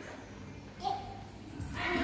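A young child's short wordless vocal sounds: a brief pitched note about a second in, then her voice starting again near the end.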